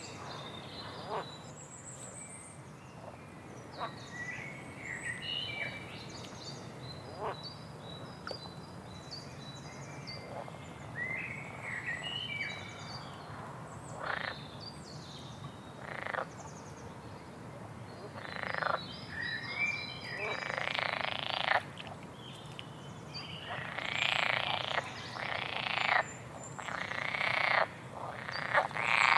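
Songbird chirping with short high twitters. From about two-thirds of the way through, a run of louder, harsh rasping calls comes every second or so.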